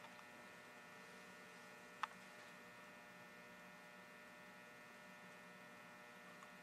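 Near silence: a faint steady electrical mains hum, with one short sharp click about two seconds in.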